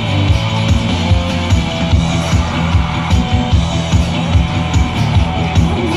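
Slot machine's rock-style free-game bonus music, guitar over a steady drum beat, playing loudly while a win is added up.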